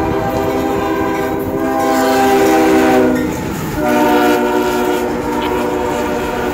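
Lead CSX ES40DC locomotive sounding a long, loud multi-note air horn chord as it passes close, over the low rumble and wheel clatter of the train. About halfway through the horn dips briefly and comes back slightly lower in pitch as the locomotive goes by.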